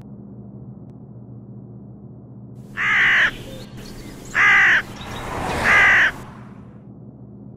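Crow cawing three times, a little over a second apart, starting about three seconds in, over a steady low hum.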